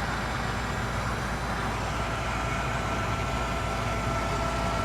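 Gas furnace draft inducer motor running steadily on a call for heat. A faint thin whine joins about two seconds in.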